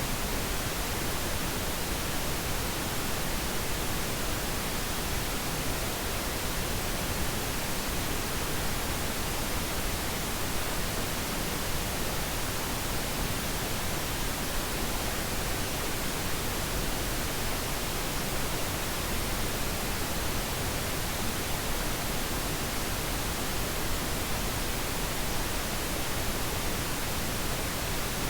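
Steady synthetic pink noise, an even hiss spread across all pitches, unchanging throughout.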